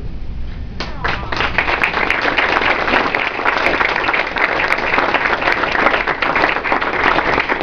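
A roomful of people applauding: dense, steady clapping that starts about a second in.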